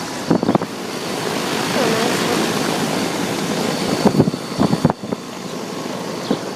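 Ducane 12 SEER central air conditioner's outdoor condenser unit running: a steady rush of fan air that grows louder a couple of seconds in. A few short knocks or clicks come about four to five seconds in.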